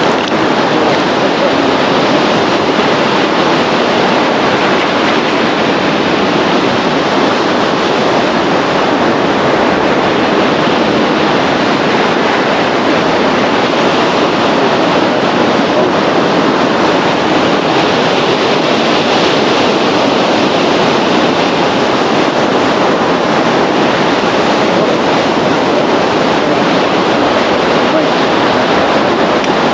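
Surf breaking and washing up a sandy beach: a loud, steady rush of waves with no let-up.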